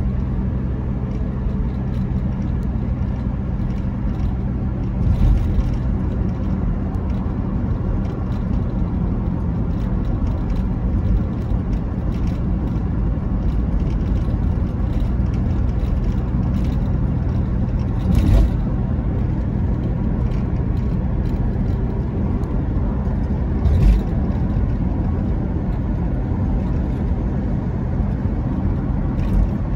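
A car cruising steadily, its engine and tyre drone unchanging, with about four short thumps spaced several seconds apart.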